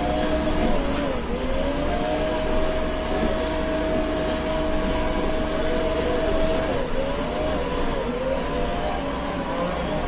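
JCB 3DX backhoe loader's diesel engine running while the machine drives along, heard from inside its cab. The engine note dips about a second in and again near seven seconds, and holds steady in between.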